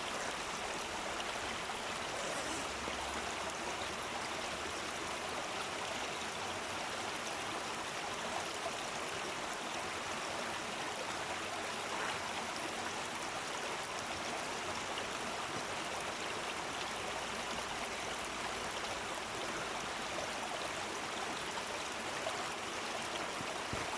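Waterfall water rushing and splashing, a steady even hiss that does not change.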